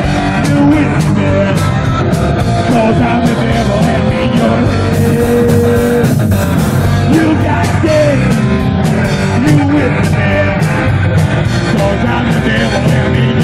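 Live rock band playing loud: electric guitar, electric bass and drum kit with crashing cymbals, with a man singing over them.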